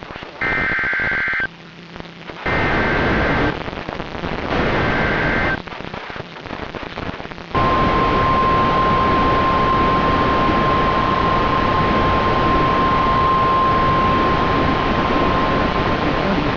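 NOAA Weather Radio emergency alert: three one-second bursts of SAME header data tones about a second apart, then the steady 1050 Hz warning alarm tone, all under heavy radio static. It marks the start of a new severe thunderstorm warning broadcast.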